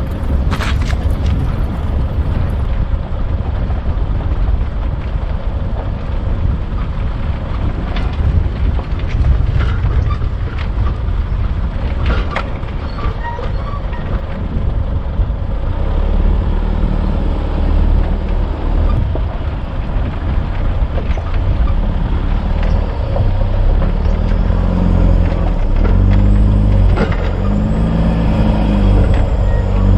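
Isuzu D-Max turbo-diesel ute driving along a rough dirt track, its engine running under continuous road noise with scattered knocks and rattles over the bumps. From about halfway the engine note comes through steadily, rising and falling in pitch a few times near the end.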